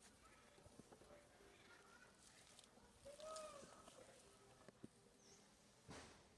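A monkey gives one short, faint coo that rises and falls in pitch. Small rustles and clicks, plus a brief high chirp near the end.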